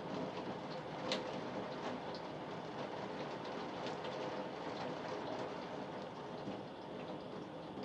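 A steady, even rushing noise with a faint hum running under it and light clicks scattered through it.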